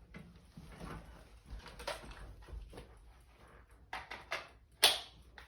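Hands handling tools and mounting hardware: scattered light clicks and knocks with soft rustling, a couple of knocks about four seconds in and one sharp click near the end. No drill is running.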